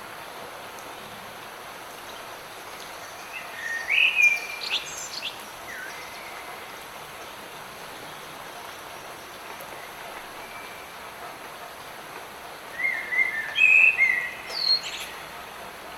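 Light rain falling with a steady, even hiss, while a songbird sings two short bursts of chirps and whistled glides: one about three seconds in and another near the end.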